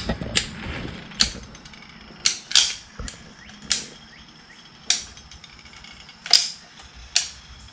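Manual caulking gun clicking as its trigger is squeezed and released, pushing out a bead of silicone sealant. Sharp single clicks at uneven intervals, roughly one a second.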